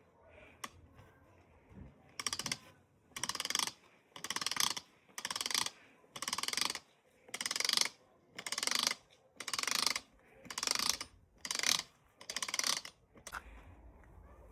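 Hand-cranked jar seaming key turned stroke by stroke to roll a tin lid onto a compote jar: about eleven ratcheting, grinding bursts, roughly one a second.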